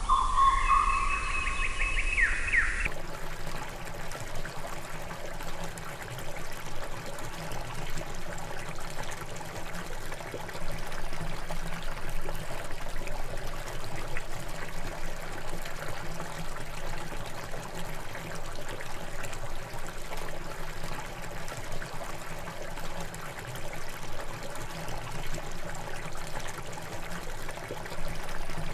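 Steady trickling water. A few gliding tones in the opening seconds cut off abruptly as the water takes over.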